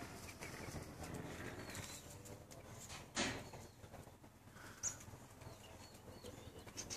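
Quiet outdoor ambience with light wind noise and faint bird calls, broken by one sharp knock about three seconds in and a smaller click near five seconds.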